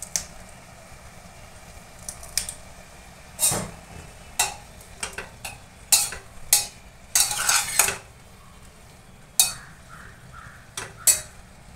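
Slotted metal spatula scraping and knocking against a stainless steel pressure cooker while stirring chopped vegetables, in irregular strokes with a longer scrape a little past the middle.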